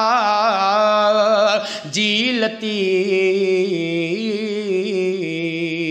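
A man singing a Sindhi manqabat, a devotional song in praise of Hassan and Hussain, in one solo voice. He draws out long, ornamented held notes, with a short break for breath about two seconds in.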